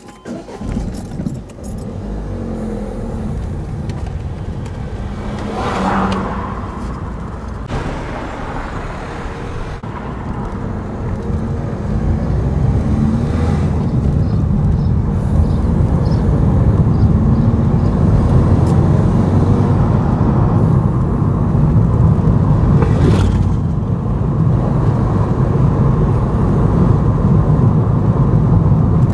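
Car engine and tyre noise heard from inside the cabin as the car pulls away and gathers speed, growing louder over the first dozen seconds and then running steady. There are brief louder swells about six seconds in and again near 23 seconds.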